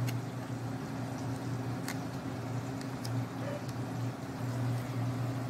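A steady low hum, like a motor running, with a few faint light clicks about two and three seconds in.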